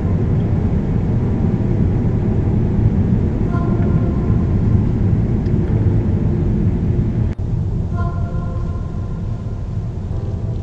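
Car engine and tyre noise heard inside the cabin, a steady low rumble while driving along a narrow lane, with a momentary dropout about seven seconds in.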